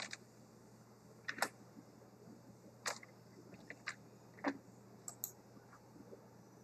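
Scattered clicks of a computer mouse and keyboard, about eight of them at irregular spacing, over faint steady hiss.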